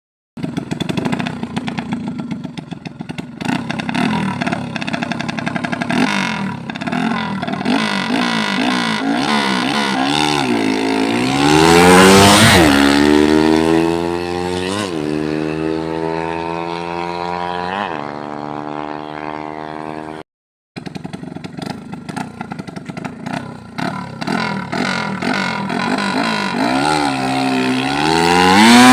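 Freshly overhauled motorcycle engine on a test run, being revved: the engine note climbs and falls in repeated sweeps, highest about twelve seconds in and again near the end. The sound cuts out for a moment about two-thirds of the way through.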